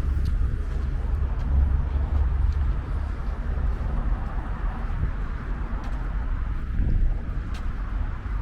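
City street ambience: road traffic running past, with wind rumbling on the microphone.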